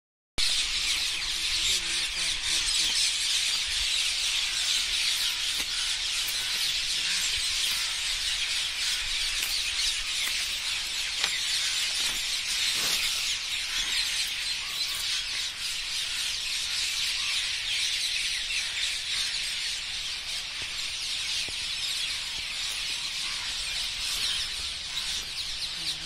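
Dense chorus of many birds calling and chattering at once from the trees, a steady shrill mass of overlapping calls with no single bird standing out.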